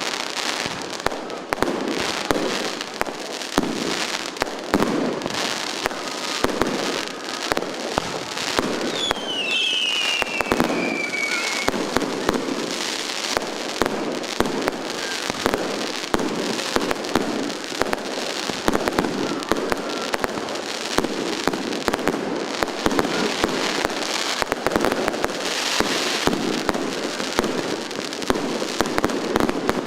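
Fireworks going off without a break: a dense, steady stream of sharp bangs and crackles, with one falling whistle about a third of the way through.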